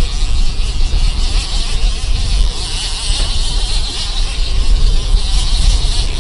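Wind buffeting the microphone with a heavy, uneven rumble on an offshore fishing boat under way, over a steady high buzzing hiss from the boat's motor and the water.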